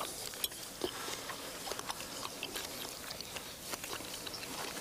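Two people eating: forks clicking against china plates, with faint chewing. The sound is a loose scatter of small ticks and soft mouth noises, with no single loud event.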